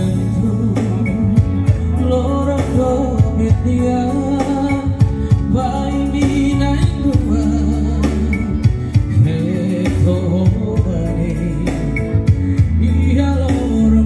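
A song with a sung vocal and a heavy bass, played loudly through a PA loudspeaker system during a sound check.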